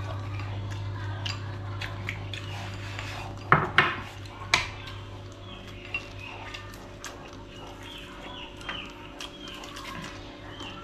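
Chopsticks and small ceramic bowls clinking while people eat, with a few sharper clinks about three and a half to four and a half seconds in. Birds chirp faintly throughout, over a steady low hum.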